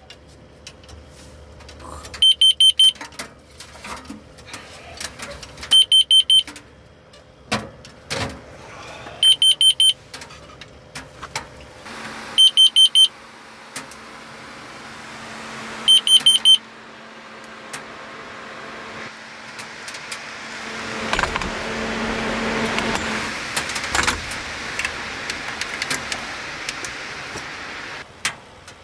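Carbon monoxide detector alarm going off: five groups of four short, high beeps about every three and a half seconds, stopping about two-thirds of the way through. It has detected carbon monoxide from the wood stove. A rushing noise then swells and fades near the end.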